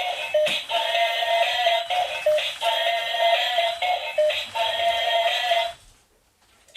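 Toy robot's built-in speaker playing an electronic tune with synthetic-voice singing, thin and tinny with no bass, cutting off about six seconds in.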